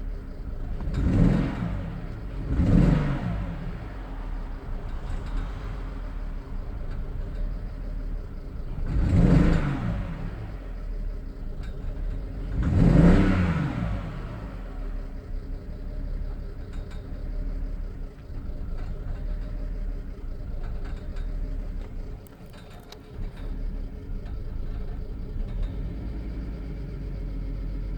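BMW engine blipped four times, each rev rising and falling back, then settling to a steady idle.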